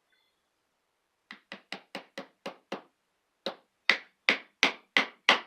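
Hammer driving small nails into the back panel of a flat-pack shelf. A run of light, quick taps (about four a second) gives way after a brief pause to harder, louder blows about two or three a second.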